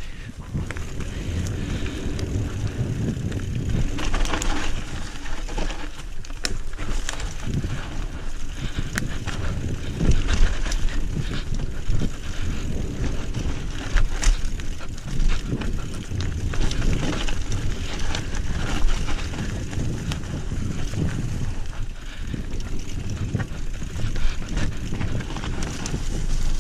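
Trek Remedy 7 mountain bike riding down a rough trail: a continuous rumble of tyres and frame over the ground, broken by frequent rattling knocks from the bike, with the biggest jolts about ten and fourteen seconds in.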